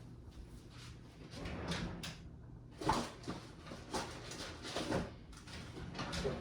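Boxes and plastic router letter templates being handled and sorted: a string of irregular rustles and knocks, the loudest about three seconds in and again near five seconds.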